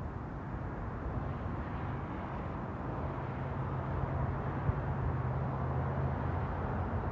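A steady low mechanical hum under outdoor background noise.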